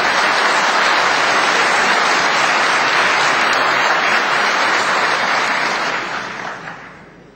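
Assembly members applauding in a large chamber: a steady, dense clapping that dies away near the end.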